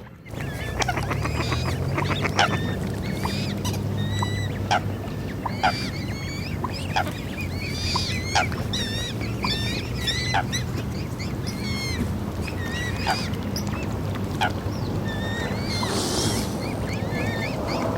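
Waterfowl calling in short, repeated calls, mixed with the higher chirps of small birds, over a steady low rumble of water and wind.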